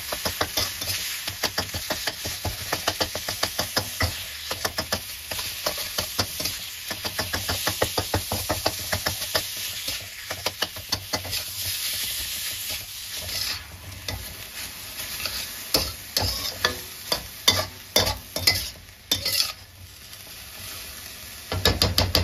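Minced pork sizzling in a hot oiled wok while a metal spatula chops and scrapes it apart in quick, repeated strokes. In the last several seconds the strokes are fewer and sharper, the spatula clacking against the wok.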